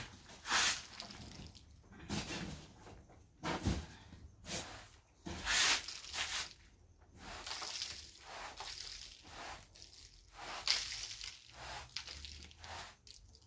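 Short straw hand broom sweeping a carpet: a run of uneven brushing swishes, about one or two a second.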